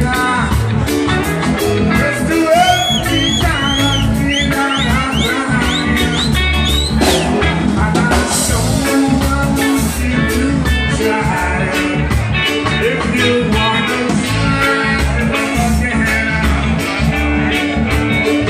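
Live band playing: a man sings into a microphone over electric guitar and bass guitar with a steady beat.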